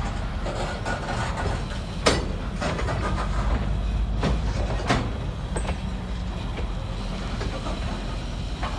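N-scale model freight train of gondolas and tank cars being shoved slowly along the track: a steady low running rumble with a few sharp clicks.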